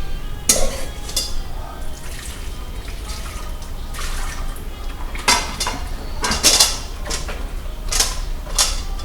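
Dishes and pots clattering and clinking as they are handled during hand washing, with about eight sharp knocks scattered through, several of them close together past the middle.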